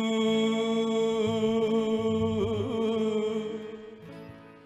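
A singer holds one long sung note on 'Yeshu' over soft keyboard chords in a worship song; the note wavers about halfway through and then fades away towards the end.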